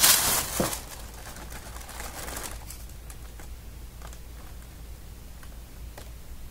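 Cardboard shoebox lid being opened: a brief rustle and a light knock right at the start, then faint handling ticks over a low steady hum.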